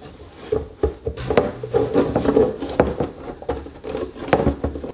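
Irregular clicks and knocks of hard 3D-printed plastic airboat parts being handled and fitted together.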